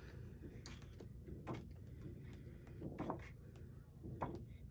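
Sheets of patterned scrapbook paper in a 12x12 pad being turned over one after another, giving a few soft paper flaps and rustles about a second apart.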